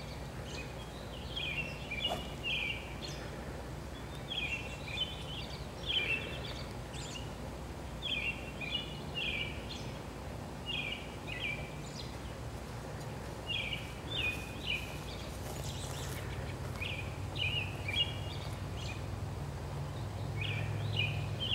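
A songbird singing the same short phrase of quick notes over and over, about every two seconds, with a steady low hum underneath that grows a little louder near the end.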